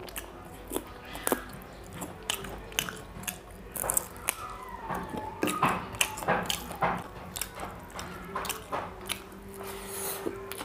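Close-miked eating sounds: wet lip smacks and chewing as chicken curry and rice are eaten by hand. The smacks come irregularly, several a second at times.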